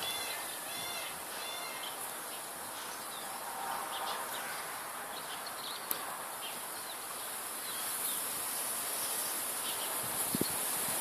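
Outdoor ambience: a small bird chirping in a quick repeated series, then scattered chirps, over a steady high-pitched insect drone. A single sharp click comes about six seconds in.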